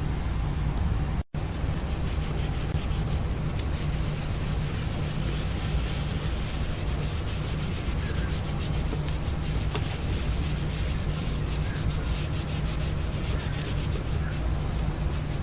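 A soft sponge with warm soapy water scrubbing a black painted plate: a steady rubbing that cuts out very briefly about a second in.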